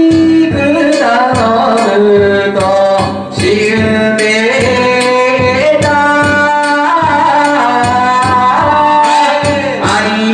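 A danjiri hikiuta (pulling song) sung in long, wavering held notes over a steady beat of sharp strikes.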